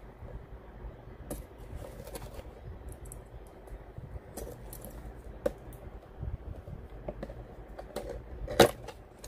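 A figure being taken out of its cardboard box and packaging by hand: scattered light clicks, taps and rustles, with one louder knock near the end.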